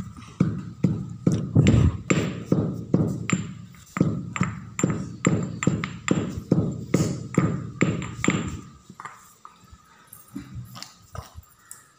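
Stone pestle pounding in a stone mortar, dull thuds at about two and a half strokes a second. The pounding stops about three-quarters of the way through, leaving a few faint taps.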